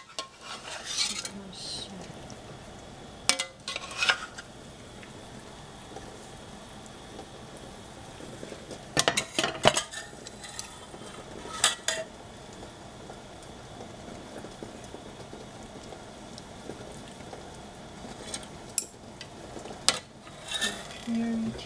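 Metal ladle scraping and clinking against a stainless steel pot of cooked squash and bean thread being stirred, in scattered strokes with a cluster about nine seconds in and several more near the end. A faint steady hiss runs between the strokes.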